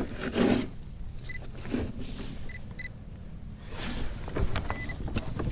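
Soft knocks and scrapes against a plastic kayak while a fish is worked free from under the seat, over a steady low rumble of wind on the microphone.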